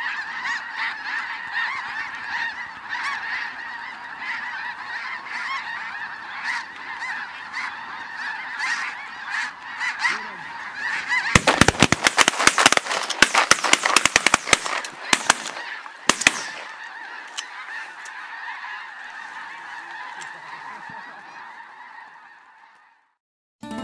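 A large flock of snow geese calling, a dense clamor of high honks. About eleven seconds in, a rapid volley of shotgun shots cracks out for about five seconds, then the goose calling goes on and fades out near the end.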